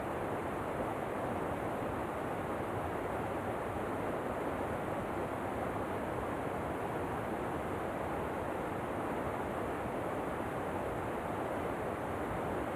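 Steady, unbroken rush of a waterfall, an even noise that does not change.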